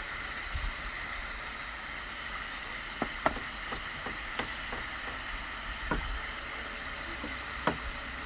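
Steady outdoor background noise, with a scattering of short, sharp clicks and smacks from the second half onward as boiled sea-snail shells are handled and the meat is eaten.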